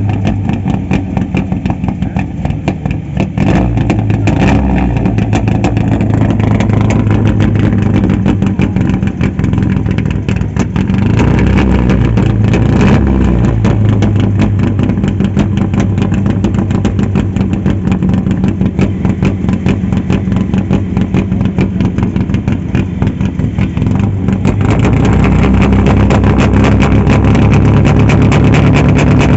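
Renault 18 GTX rally car's Berta-prepared four-cylinder engine running at idle, revved up and back down briefly about 12 seconds in, then held at a steady higher speed and louder near the end.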